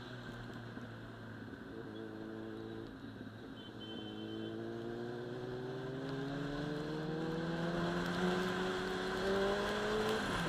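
Sport motorcycle engine at speed. It holds a steady pitch for a few seconds, then accelerates with its pitch and loudness climbing slowly for about six seconds, with a brief break in the sound near the end.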